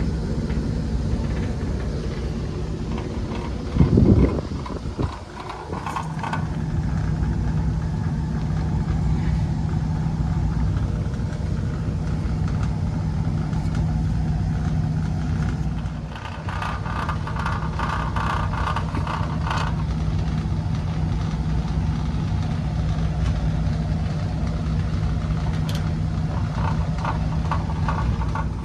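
Rooftop HVAC fan unit running with a steady low hum. A loud low thump about four seconds in, and a few short spells of higher-pitched rattle.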